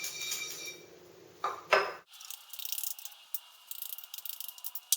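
A clatter of cookware about one and a half seconds in, then the fine high crackle of bran muffin batter sizzling in a frying pan, with a sharp click near the end.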